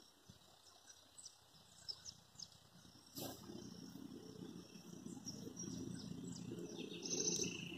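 Faint outdoor garden ambience with small birds chirping in short high notes. About three seconds in a click is followed by a low, steady noise, and a louder burst of high chirping comes near the end.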